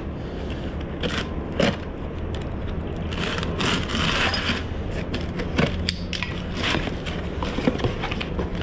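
A box cutter slitting open a cardboard box about midway through, among scattered knocks, clicks and scrapes from handling the box and loose metal parts.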